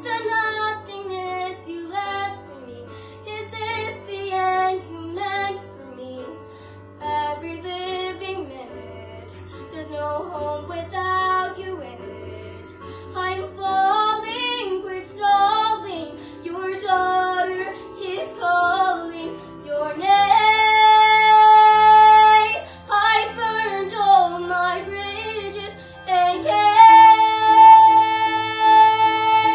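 A girl singing a musical-theatre song over an instrumental accompaniment, her melody moving in short phrases and then holding two long notes, the first about two-thirds of the way through and the second near the end.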